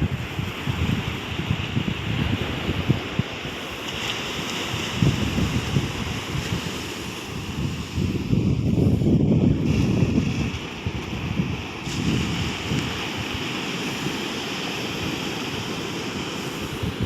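Ocean surf washing steadily onto a beach, with wind buffeting the microphone in gusts, heaviest about nine seconds in.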